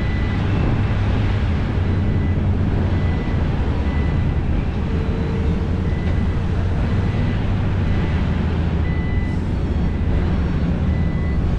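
Heavy diesel engines of excavators and dump trucks running steadily, with a reversing alarm beeping about once a second.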